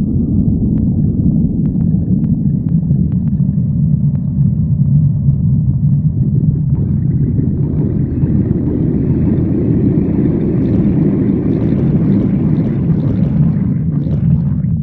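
Stomach growling: a continuous low rumble, with a few faint clicks in the first few seconds and a brighter, hissier gurgle in the second half.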